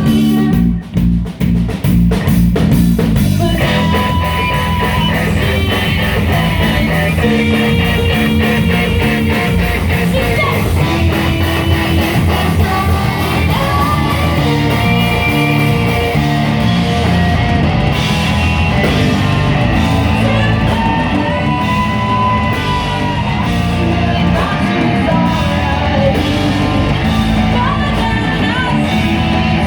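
Rock band music: guitar and drum kit playing a song, with a fuller sound coming in about three and a half seconds in.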